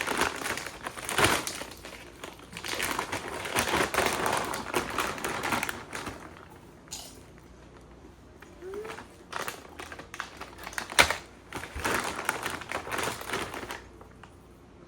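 Popcorn and its bag being handled: irregular crinkling and crackling, busy for the first few seconds, then thinning to scattered crackles and clicks.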